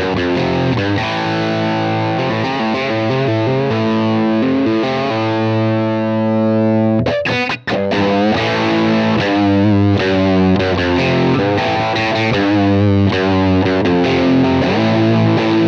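Electric guitar played through a UAFX Lion '68 Super Lead amp-emulator pedal in Super Lead (Plexi) mode, pushed into overdrive: a fat, distorted tone playing riffs and chords. About a third of the way in a chord is left ringing for about two seconds, then there is a brief break before the riffing picks up again.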